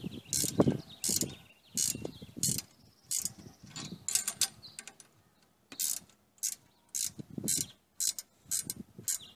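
Wrench tightening the bolts on a steel roof-rack light-pod mounting bracket: short bursts of metal clicking, about fifteen strokes coming in uneven runs, with a few duller knocks of metal against metal.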